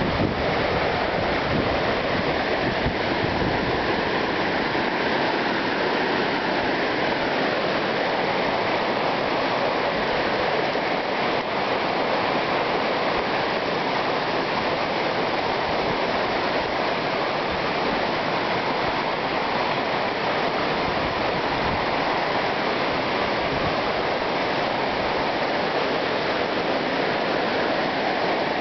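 Shallow stream water flowing over rocks, a steady rushing with no breaks.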